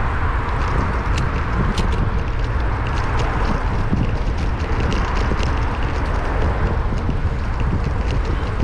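Wind rushing over a bicycle-mounted action camera's microphone while riding, a steady low rumble with scattered small ticks and rattles from the bike and its mount.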